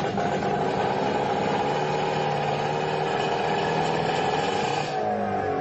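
Car engines running steadily, with the pitch dropping about five seconds in.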